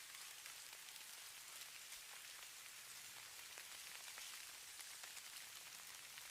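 Snowstorm ambience: a faint, steady hiss of falling precipitation with light, scattered pattering ticks.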